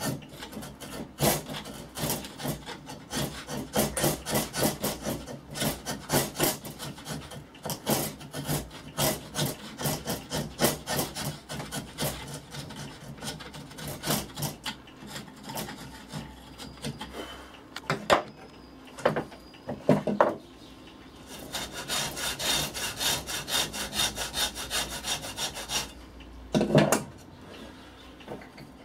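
A hand file rasping wood inside the mouth of a wooden hand plane body clamped in a vise, in repeated back-and-forth strokes about two a second. The strokes thin out to a few single ones a little past the middle, then pick up again. The mouth is being filed wider because it is too tight for the blade.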